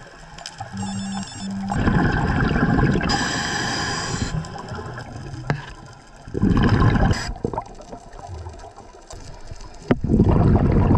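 Scuba diver breathing through a regulator underwater: three exhalations, each a burst of gurgling, bubbling rush, with quieter gaps between them.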